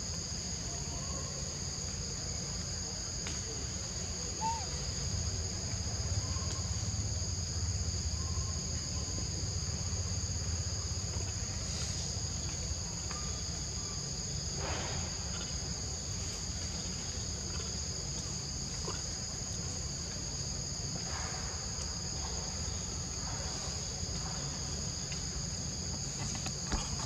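Steady high-pitched insect chorus: two even drones that never break, over a low steady rumble.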